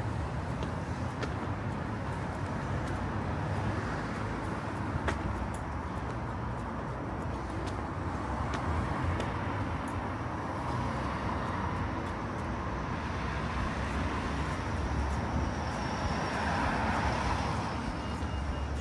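Street traffic ambience: a steady hum of road traffic, with passing cars swelling louder about ten seconds in and again near the end, and a few sharp clicks.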